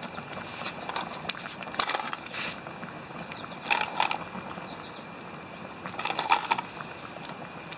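Frozen shell-on shrimp dropped one at a time into a canteen cup of simmering rice, making several short splashes spread out over a steady hiss.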